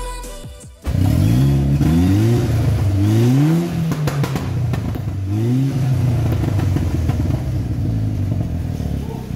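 Seat Leon Cupra R Mk2's turbocharged four-cylinder engine, heard through its new custom valved cat-back exhaust, revved three times in quick blips, then settling to a steady idle.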